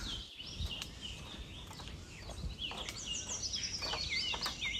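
Several forest birds chirping in quick, repeated short calls, busier in the second half, over a low outdoor rumble.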